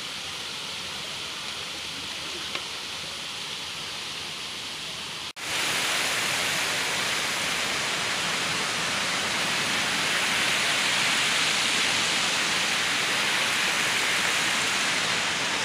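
Steady rush of a stream flowing over rocks. The sound cuts out for an instant about five seconds in and comes back louder and hissier.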